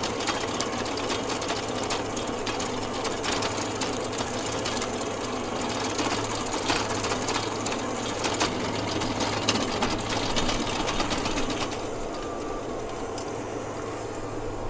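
Walk-behind stump grinder running, its toothed cutter wheel chewing into a tree stump: a steady engine hum under a dense, rapid crackle of wood being chipped. It eases off slightly near the end.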